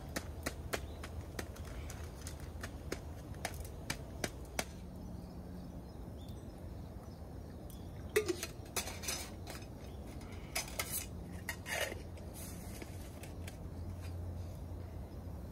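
Metal camp cookware clinking and clattering as small pots and a kettle are handled: a run of light clinks, then louder clatters about eight and eleven seconds in.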